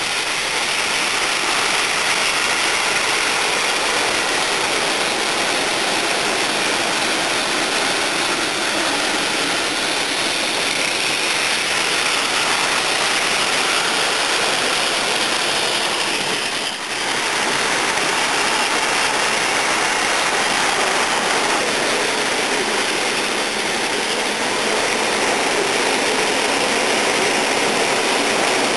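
Many battery-powered Plarail toy trains running at once on plastic track: a steady, dense mechanical din of their small electric motors, gears and wheels, with a brief dip about seventeen seconds in.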